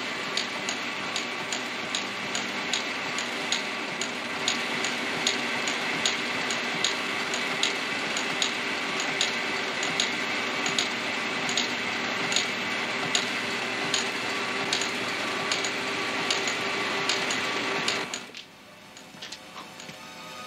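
Printing press running: a steady mechanical whir with a regular clacking, a few beats a second. It stops suddenly about eighteen seconds in, giving way to quieter music.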